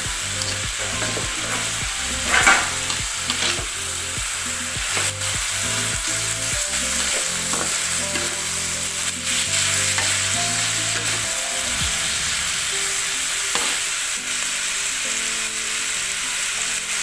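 Stir-frying in a wok: sliced bitter melon with dried shrimp sizzling steadily in hot oil, turned with a metal spatula that scrapes and clicks against the pan a few times.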